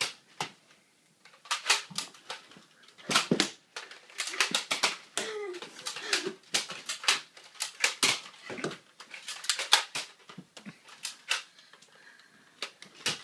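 Nerf foam-dart blasters being fired during an indoor Nerf battle, with darts striking walls and furniture: an irregular run of sharp clacks and knocks, densest through the middle.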